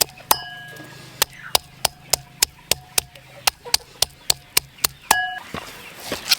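A knife chopping on a board in steady strokes about three a second, some with a short metallic ring, stopping about five seconds in.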